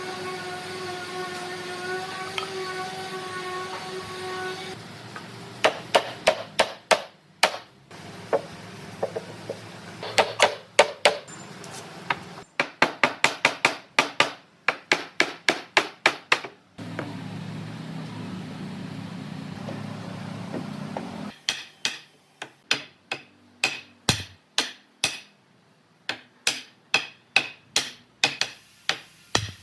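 A machine hum for the first few seconds, then runs of rapid hammer strikes, a few blows a second, broken by short pauses.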